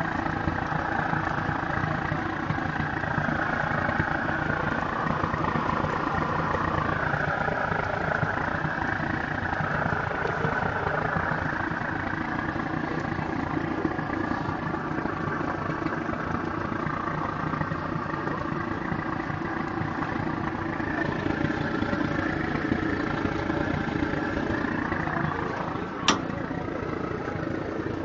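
Gas rotisserie chicken oven giving off a steady, unbroken mechanical running noise: the strange noise that began after an explosion at the second rack from the bottom. Near the end there is one sharp click.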